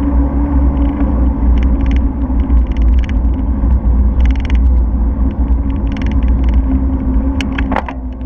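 Wind and road rumble on a bicycle-mounted camera's microphone while riding, with a steady low hum and scattered short rattles. A brief falling squeak with a couple of sharp ticks comes near the end.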